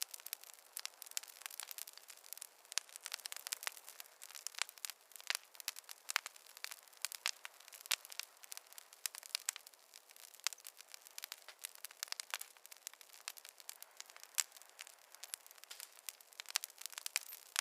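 Wood fire crackling in a fireplace: many irregular sharp pops and snaps over a faint hiss, with no low rumble.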